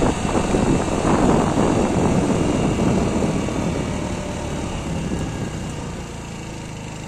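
50 cc REX RS450 scooter slowing down: engine and wind noise fading steadily as the scooter coasts down from about 45 km/h. About six seconds in, the engine settles to a steady idle.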